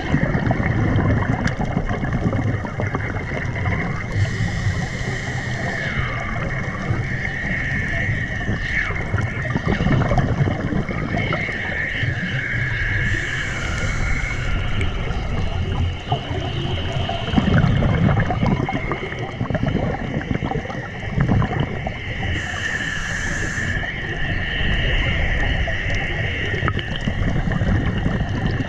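Underwater sound on a scuba dive: low rumbling water noise under a high whine that wavers up and down. Three bursts of hissing bubbles come about nine seconds apart, a diver exhaling through a regulator.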